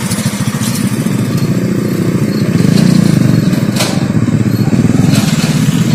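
Motorcycle engines running as bikes ride across a suspension footbridge: one passes close by, and another comes up the bridge, growing louder about halfway through. A few sharp clicks are heard over the engine.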